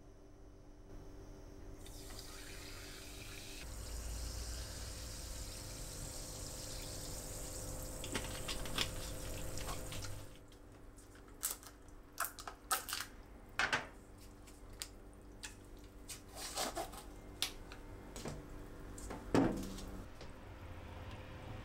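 Carbonated water poured from a plastic bottle over ice cubes into a glass of melon syrup: a steady fizzing pour lasting about eight seconds. After it stops, a scatter of sharp clicks and small taps follows, the strongest near the end.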